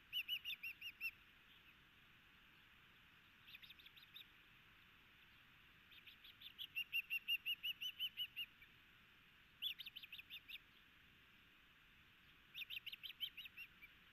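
Osprey calling from the nest in bouts of short, high, whistled chirps repeated in quick series. The longest run comes about six seconds in, over a faint steady hiss.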